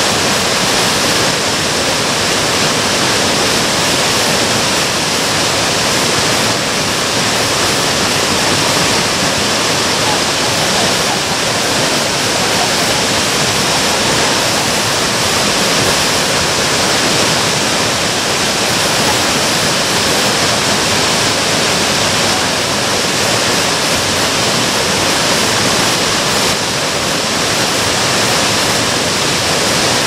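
Minoo Falls, a 33-metre waterfall, plunging into its plunge pool: a steady, unbroken rush of falling water.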